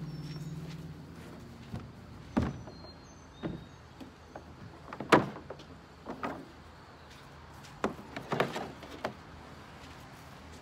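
Scattered knocks and clunks as a battery and its cable are handled and set into a plastic jon boat hull, the loudest about five seconds in. A steady hum fades out over the first second or two.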